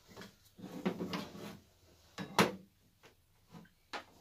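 Handling noise on a metal workbench: a gloved hand moving things about, with rustles and light knocks, then one sharp click about two and a half seconds in and a smaller one near the end.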